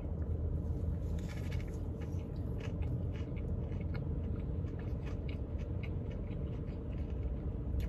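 A person chewing a mouthful of fried chicken biscuit: soft, irregular little clicks and smacks of the mouth, over a steady low hum.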